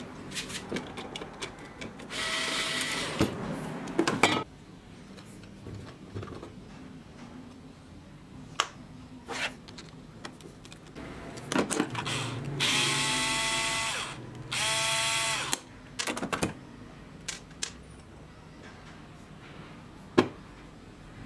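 A power drill runs in three short bursts, the later two winding down in pitch as they stop, with scattered clicks and knocks of metal parts being handled between them.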